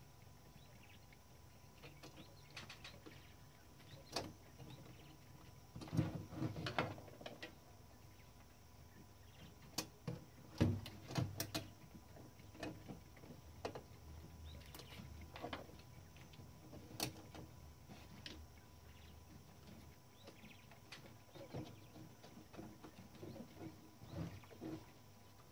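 Scattered clicks, taps and knocks of hands and tools working on a Klein Adler 2 portable typewriter, with louder bursts of clatter about six seconds in and again around ten to twelve seconds in.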